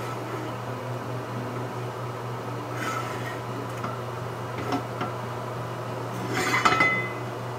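A fan hums steadily while a De Buyer carbon steel skillet scrapes and clinks against the cast-iron burner grate as it is shifted about, with the loudest clatter near the end ringing briefly.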